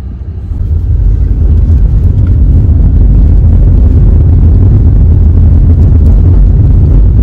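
Car cabin road and engine rumble while driving: a loud low rumble that builds over the first couple of seconds and then holds steady.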